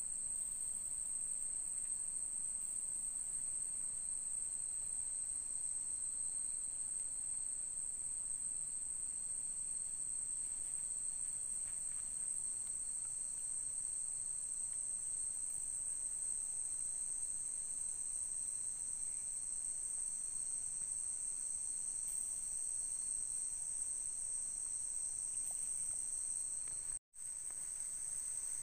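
Steady, high-pitched chorus of night insects trilling without a break, with a brief dropout to silence near the end.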